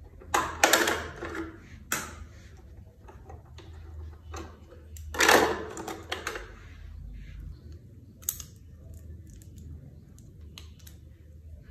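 Clicks and clatter of a sewing machine's metal bobbin case being taken out of the bobbin area and handled with a bobbin in it, with two louder stretches of clattering just under a second in and about five seconds in.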